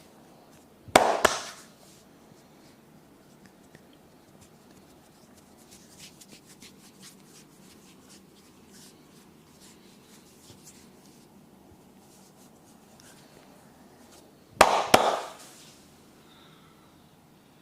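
Two loud, sharp cracks during a head and back massage, about fourteen seconds apart: each is a quick double hit with a brief patter trailing after it. In between there are faint small taps and rubbing of hands on skin.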